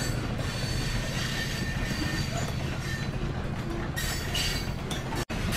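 Train sound effect: a train rolling steadily along the rails, with a brief cut-out near the end.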